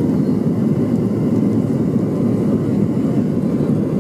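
Jet airliner's engines making a steady, low rumble, with no change in level.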